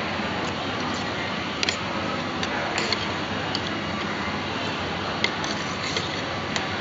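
Eating sounds: scattered light clicks and taps, a dozen or so at irregular times, over a steady background hiss.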